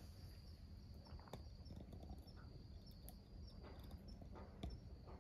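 Faint insect chirping: a steady high trill with small pulses repeating about two to three times a second, with a few soft ticks.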